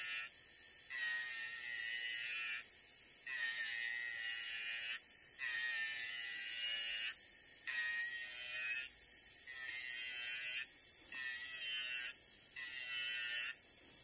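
Shiny Leather electric nail drill spinning a barrel bit at about 7,000 RPM, grinding gel polish off a fingernail: a steady high whine whose pitch wavers, broken by short dips every one to two seconds as the bit is passed over the nail and lifted.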